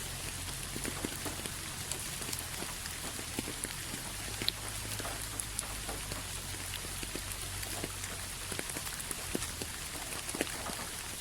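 Steady rain falling, an even hiss with many separate drops ticking sharply on a surface, over a low steady rumble.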